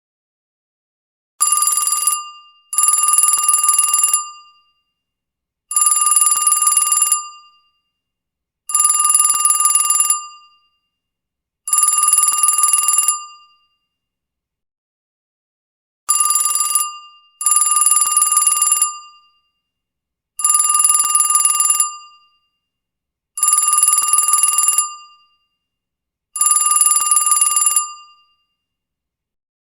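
Old telephone bell ringing as a ringtone. The rings last about a second and a half each, one roughly every three seconds, in two runs of five with a short pause between; the first ring of each run is cut short.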